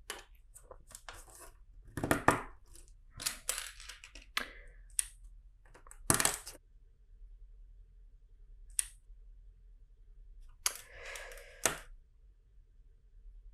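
Plastic LEGO pieces clicking and clattering as they are handled and pressed together, in irregular sharp clicks with short rustles between.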